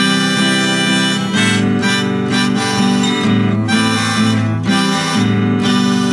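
Harmonica playing an instrumental break over strummed acoustic guitar, with long held notes above steady chords.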